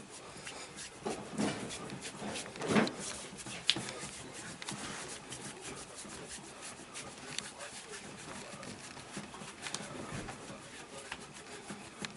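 Hands rubbing and kneading a patient's skin during a massage: a steady rasping rub with many small clicks, and a few louder strokes in the first few seconds.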